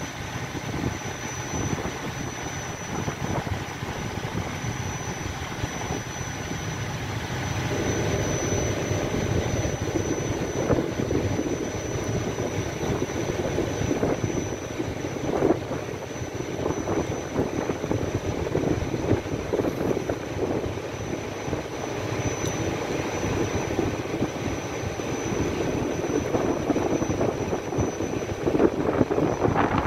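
Low rumble of a gas tanker's and its escort tug's engines close by, mixed with wind buffeting the microphone. It grows fuller and louder from about eight seconds in.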